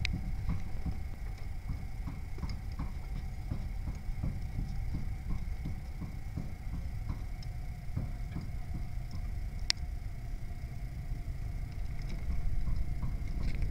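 Many light, irregular clicks and taps over a low rumble, with one sharper click near the end; faint steady high tones run underneath.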